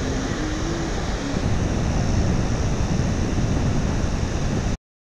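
Wind buffeting the microphone over the wash of ocean surf on the beach, a steady rushing noise with a heavy low rumble; it cuts off abruptly near the end.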